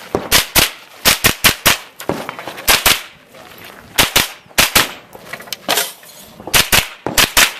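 Semi-automatic AR-style rifle fired rapidly, shots coming in quick strings of two to five with brief pauses between groups, about eighteen shots in all.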